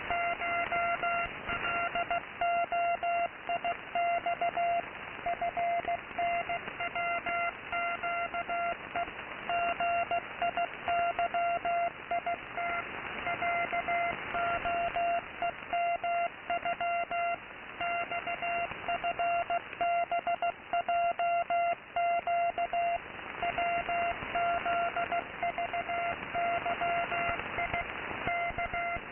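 Morse code from a shortwave radio station received in AM: a single beeping tone keyed on and off in dots and dashes, over steady static hiss.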